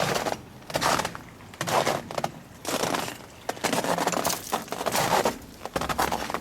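Footsteps crunching through ice-crusted snow, about one step a second, each step a brittle crushing crunch.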